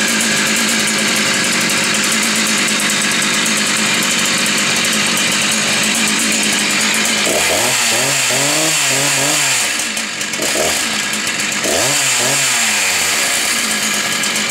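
Husqvarna 288 XP 88 cc two-stroke chainsaw running at high revs. Its pitch sags and recovers twice in the second half, with a brief drop in level between.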